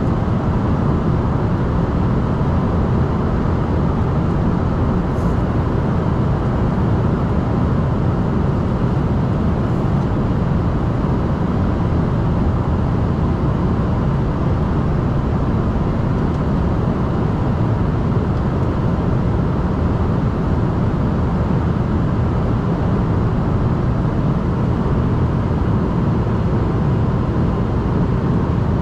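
Steady cabin noise inside an Embraer ERJ-145 airliner: an even roar of its rear-mounted turbofan engines and the airflow, heaviest in the low range and unchanging throughout.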